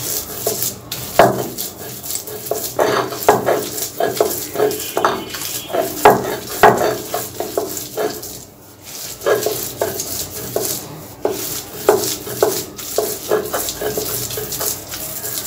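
Stone roller scraped back and forth over a flat textured grinding stone (shil-pata), grinding fried fish with fried onion, garlic and green chillies into a coarse paste. Rough scraping strokes come about two a second, with a short pause about eight seconds in.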